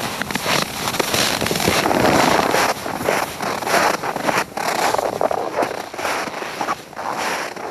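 Boots crunching through deep snow: an irregular crackling crunch with no steady rhythm.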